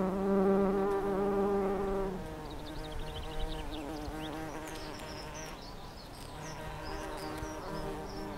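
Cartoon bumblebee buzzing sound effect: a buzzing drone, loudest for the first two seconds, then quieter and wavering in pitch, swelling again near the end.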